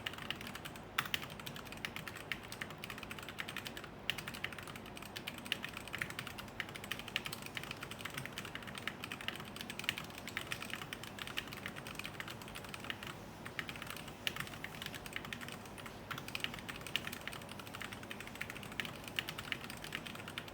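Fast, continuous typing on a Tecware B68+ mechanical keyboard with Gateron Yellow linear switches: a rapid, unbroken stream of key clacks with a few louder strikes.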